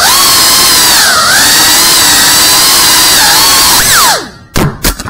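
FPV quadcopter motors and propellers whining loudly, the pitch sweeping up and down with the throttle. About four seconds in the motor noise drops away, followed by two sharp knocks.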